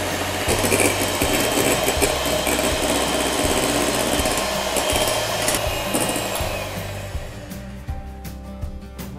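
Electric hand mixer running steadily, its beaters whipping egg whites into a stiff meringue. The motor sound falls away about seven seconds in.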